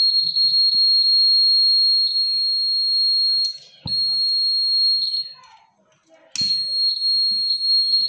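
Piezo buzzer of a homemade flame-sensor fire alarm sounding a steady, high-pitched tone, set off by a lighter flame held to the sensor. The tone drops out twice, each time with a sharp click, about 4 and 6 seconds in, and stutters on and off near the end.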